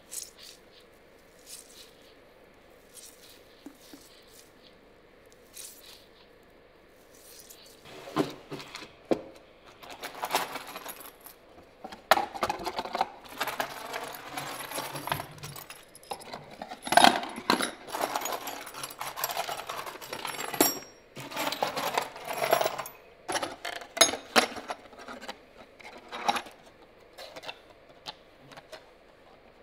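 Small metal hardware clinking and clattering as a hand rummages through a drawer of keys, screws and bits, a dense run of metallic clicks after a few faint scattered ticks.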